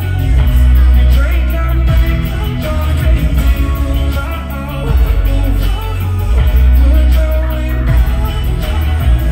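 Live pop song played loud through a concert sound system, with a heavy pulsing bass and a sung vocal line over it.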